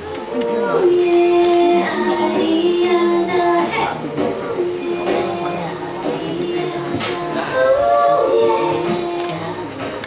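Live music: a woman singing a melody in long held notes, with a small acoustic band behind her and a light, steady ticking percussion.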